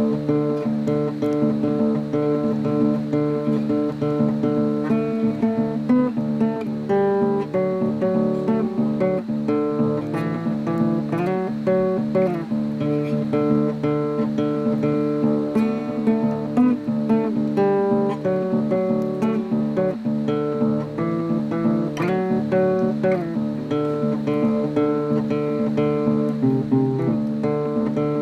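Acoustic guitar music, with plucked and strummed notes played continuously.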